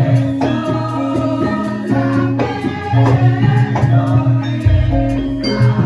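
Javanese gamelan music with singing: sustained metal tones over repeated percussive strokes, and a deep low tone entering near the end.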